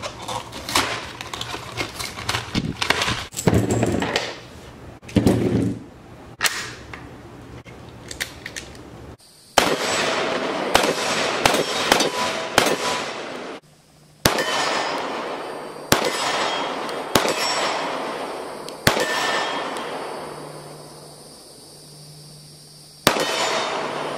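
First, clicks and rattles of hands opening a packaged box. Then about ten pistol shots fired at an irregular pace, each crack ringing out in a long echo.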